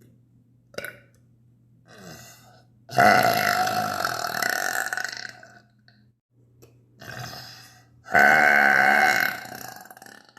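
A woman burping: two long, loud belches, each lasting about two seconds, starting about three and eight seconds in, with a few short, quieter burps before and between them. A faint steady hum lies underneath.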